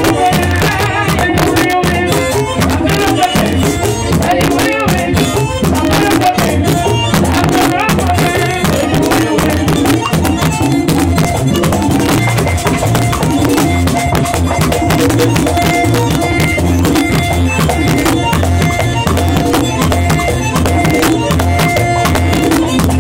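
Latin American folk music played without a break: a melodic lead over a steady, driving beat of drum and shaken or scraped percussion.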